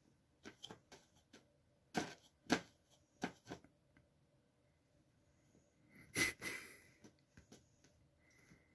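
A cat sniffing around a plate of cookies on a bedspread: a scatter of short, soft sniffs and rustles, with a louder burst about six seconds in.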